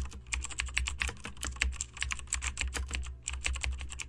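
A typing sound effect: fast, irregular key clicks over a low hum, keeping time with on-screen text being typed out letter by letter.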